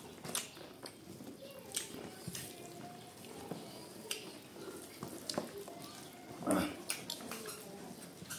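Close-up eating sounds: chewing and wet mouth smacks, with rice being squished by hand on a banana leaf, as a series of short irregular clicks. A louder brief sound stands out about six and a half seconds in.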